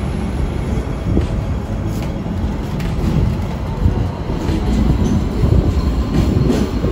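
Hong Kong double-decker tram running along its track, heard from on board: a steady low rumble from the wheels and motors, with scattered clicks and knocks from the car and rails.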